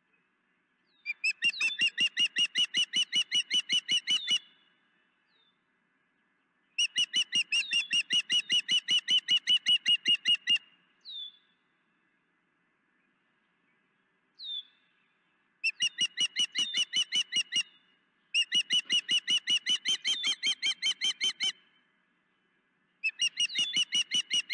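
Osprey calling from the nest: five bouts of rapidly repeated high, piping chirps, about six notes a second, each bout lasting two to four seconds, with a couple of single notes in the gaps between.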